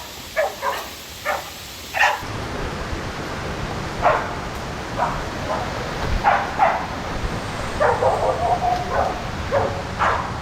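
Pig-hunting bailing dogs barking in short, repeated barks, holding a boar at bay. A steady rushing hiss comes in about two seconds in underneath the barking.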